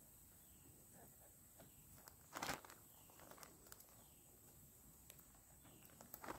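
Mostly quiet, with a few faint clicks and one brief rustle about two and a half seconds in: chicken of the woods mushroom being broken off a mossy log by hand and handled in a plastic bag.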